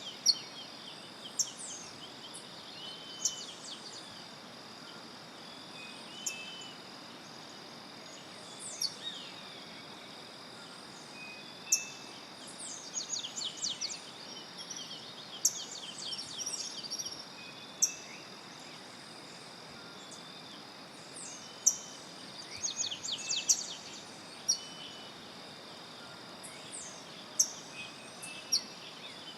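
Tropical cloud-forest soundscape: birds calling with sharp, short high notes every few seconds and two bursts of rapid descending notes, over a steady high-pitched insect drone.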